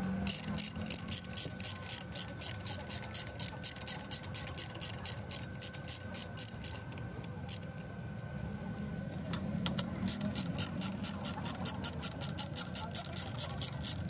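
Hand ratchet with a hex bit socket clicking in quick, even strokes as it turns a brake caliper bolt. It stops for about two seconds past the middle, then clicks on again.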